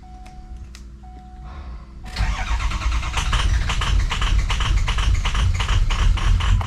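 A 6.0 PowerStroke V8 diesel is cranked by its starter from about two seconds in, chugging rhythmically as it fights to start after the tank was run dry, with air still in the fuel rail. A beeping chime sounds in the quieter stretch before it.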